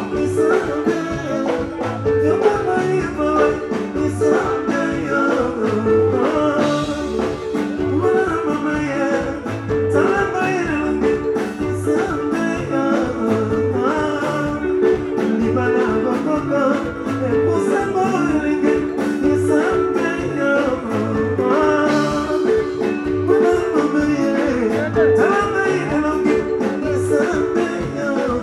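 Live soukous band music with a steady bass and drum beat, guitar lines and singing.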